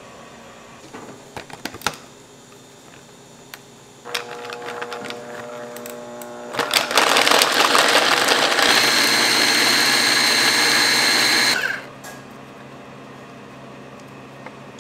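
Hand blender with its chopper attachment grinding chocolate discs and powder into a paste. A few clicks come first, then the motor starts about four seconds in, runs much louder from about six and a half seconds, and stops abruptly about three seconds before the end.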